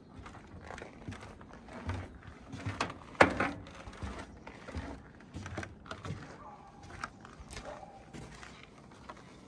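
Footsteps crunching on frozen snow, about one step a second, with one louder crunch a little past three seconds in.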